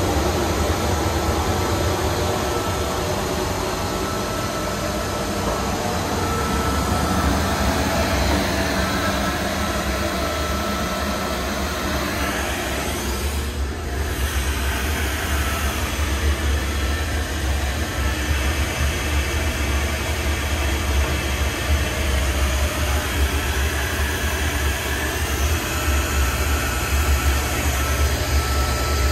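AC Horn Bauer 322 dry nut roaster running with its gas burner lit: a steady, deep rumble of the burner and its air/mix blower.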